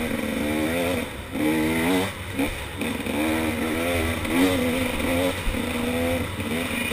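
KTM 300 XC two-stroke dirt bike engine being ridden hard, its pitch climbing and dropping back several times as it revs up and the throttle comes off.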